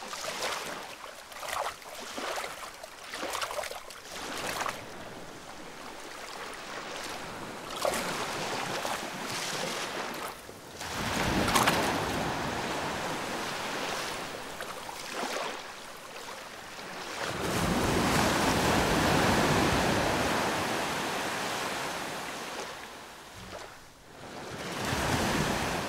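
Sea water sloshing and breaking surf as a Komodo dragon swims and wades ashore through the waves. There is a louder splash near the middle, then a long wave washing in and drawing back.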